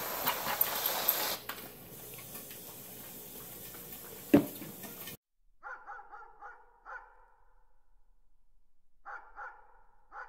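A German Shepherd snapping at whipped topping, with a loud stretch of noise at the start and a sharp knock about four seconds in. After a sudden cut, a dog barks in short, high calls in two groups, about five and then three.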